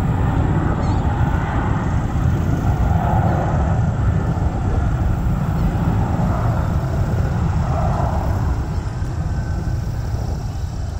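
Jet airliner's engines rumbling steadily as it departs, easing off slightly near the end.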